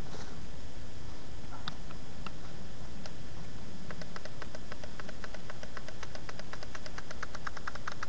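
Small plastic clicking from handling a toy RC plane and its handheld transmitter: a few single clicks, then from about halfway a quick even run of clicks, about eight to ten a second.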